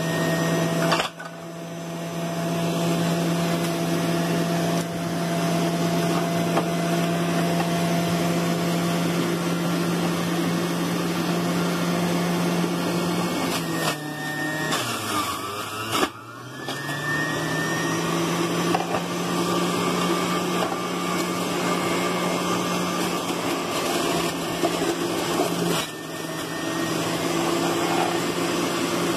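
Electric kitchen mincing machine running with a steady motor hum. About halfway through, the motor slows down and speeds back up, and it dips briefly near the start and again near the end.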